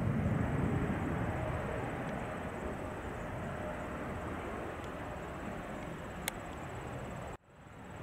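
Airbus A330-200 jet engines rumbling as the airliner rolls out on the runway after landing, loudest in the first second and then easing gradually as it slows. The sound cuts out briefly near the end.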